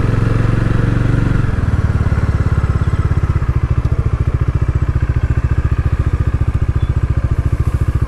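Motorcycle engine heard from the rider's seat, running steadily, then the revs drop about a second and a half in and it chugs with distinct even pulses at low revs as the bike slows down.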